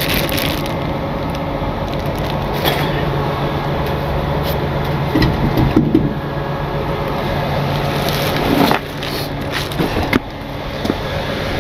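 Steady hum of an idling truck engine. A zip-top plastic bag crinkles near the start, and there are scuffs and footsteps on asphalt near the end.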